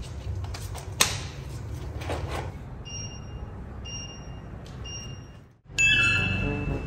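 Three short high beeps about a second apart over a low steady rumble, with a click about a second in; near the end, music cuts in with a held high note.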